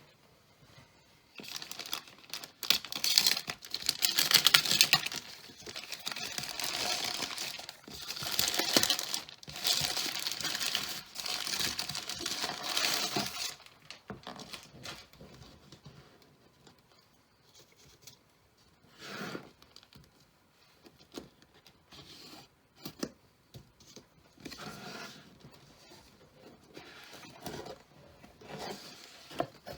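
Packaging being torn open and paper or plastic wrapping crinkling, loud and continuous for about twelve seconds, then quieter handling with scattered rustles and clicks.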